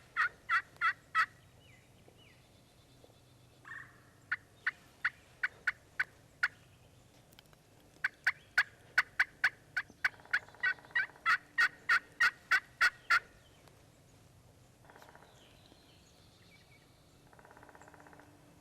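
Wild turkey yelping: three long series of sharp, evenly spaced yelps, about three or four notes a second, with pauses between them. A few faint, raspy turkey calls follow near the end.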